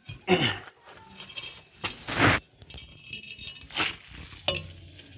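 Drum-brake shoe and return springs being handled and fitted: a few short scrapes and metal rattles, the loudest a brief scrape about two seconds in.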